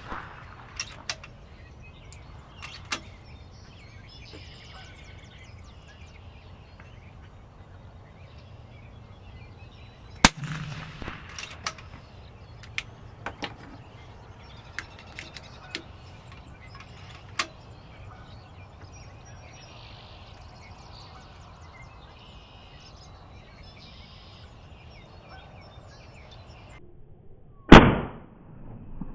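PCP air rifle shots: a sharp crack about ten seconds in and a much louder one near the end with a brief ringing tail. Scattered small clicks come between them.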